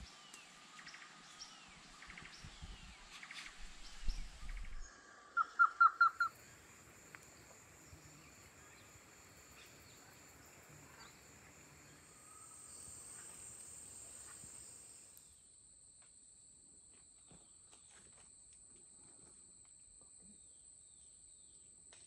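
Amazon rainforest sounds: birds calling, with a quick run of five loud notes about five seconds in. From about halfway a steady, high insect drone sets in and holds.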